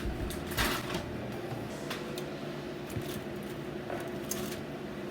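A few short rustles and knocks of kitchen handling over a steady background hum.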